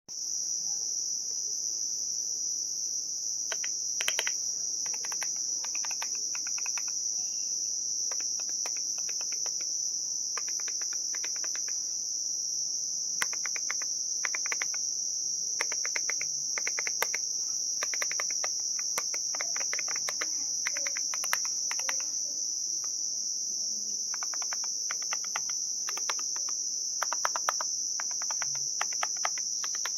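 Typing on a mechanical keyboard with zinc metal keycaps: runs of quick, sharp keystroke clicks in bursts with short pauses. Under it a steady high-pitched cricket chorus runs throughout and is the loudest continuous sound.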